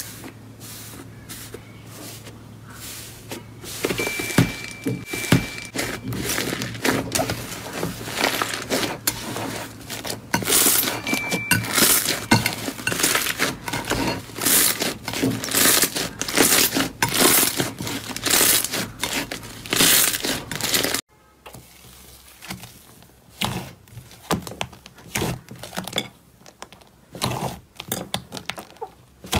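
Thick slime pressed and pulled apart by hand, giving dense crackling and popping. About two-thirds of the way through it cuts to softer, sparser squishing and popping as hands knead a soft slime.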